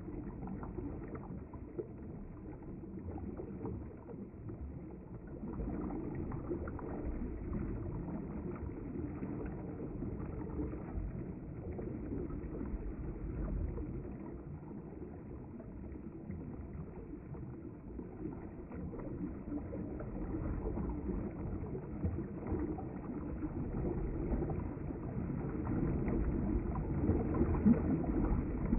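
River water flowing past the bank: a steady, uneven rushing weighted low, growing louder over the last few seconds.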